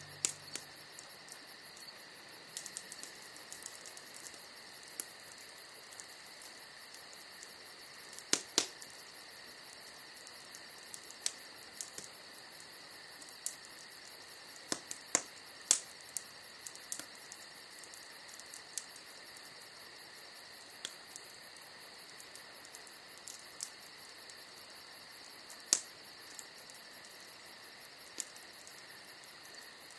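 Wood bonfire crackling, with sharp pops at irregular intervals: a few loud ones about eight seconds in, around fifteen seconds, and near twenty-six seconds. Crickets chirp steadily behind it.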